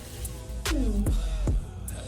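Background music with a deep bass and sharp beat hits about every 0.8 seconds.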